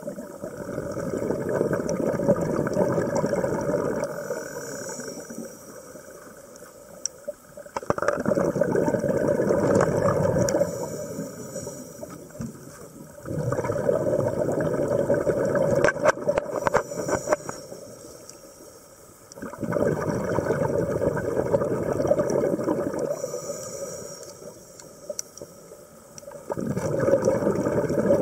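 Scuba diver breathing through a regulator underwater: five long bursts of exhaled bubbles, each about three seconds, roughly every six seconds, with a faint hiss of inhalation in the quieter gaps between them.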